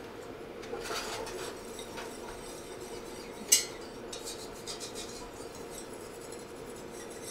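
Wire whisk stirring a butter-and-flour roux in a stainless steel saucepan, its metal wires scraping the pan, with one sharp clink of the whisk against the pan about three and a half seconds in.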